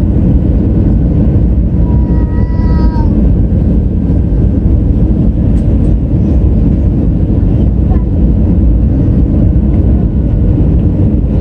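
Loud, steady low rumble inside an Airbus A320 passenger cabin: engine and airflow noise around landing. A short, slightly falling pitched tone sounds briefly about two seconds in.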